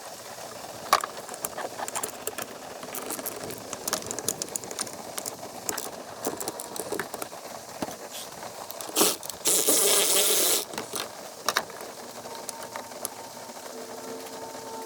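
Ratchet and socket work on the master cylinder's mounting bolts: scattered metallic clicks and tool clatter, with one loud noisy burst of about a second roughly two-thirds of the way in.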